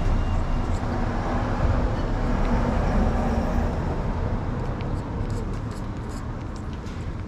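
Street traffic: a motor vehicle's engine rumble and road noise that swell early on and then slowly fade, with a few small clicks near the end.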